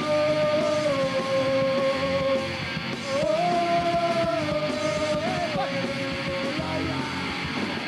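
Punk rock band playing live, with electric guitar and drums, and long held notes over the top that step up and down in pitch.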